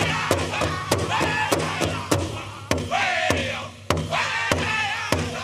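Powwow drum group singing in high voices over a big drum struck in a steady beat of about three strokes a second. The drum and voices drop briefly a little before four seconds in, then pick up again on a strong stroke.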